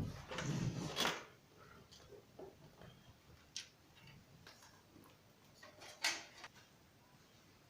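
A sharp knock, then about a second of rattling and handling noise, followed by a few scattered sharp clicks, the loudest about six seconds in: small hard parts being handled and clicked into place.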